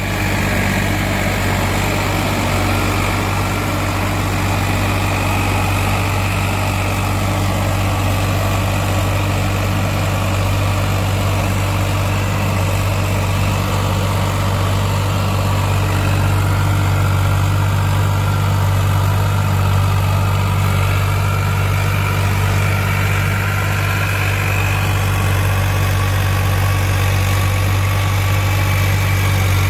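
Farmtrac 60 tractor's diesel engine running steadily at full throttle in second gear, under load from a 7-foot Shaktiman rotavator tilling the soil.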